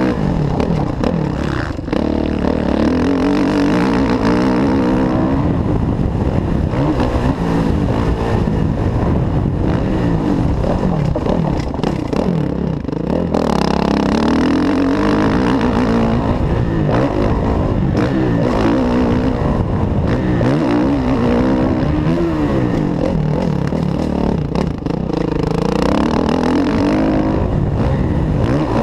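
Kawasaki KX450F motocross bike's single-cylinder four-stroke engine running hard under throttle, its pitch rising and falling over and over as the rider accelerates, shifts and backs off.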